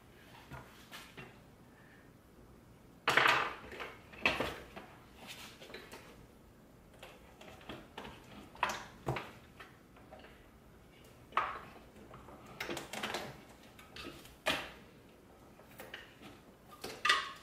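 Hands working on plastic center-console trim and its wiring-harness connectors: an irregular series of clicks, knocks and rustles, with the sharpest knocks about three and four seconds in.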